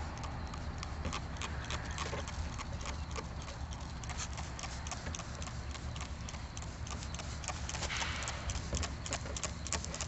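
Hand trigger spray bottle pumped over and over, misting water onto ceramic fibre wool to wet the forge lining before refractory is applied. Many quick clicks, with a louder spray hiss about eight seconds in.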